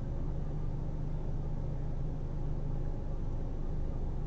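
Steady low hum with a faint hiss: constant background noise with no distinct events.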